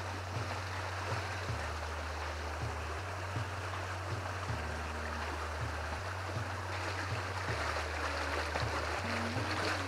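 Creek water rushing steadily, with a low hum underneath that pulses in an even pattern about every second and a half.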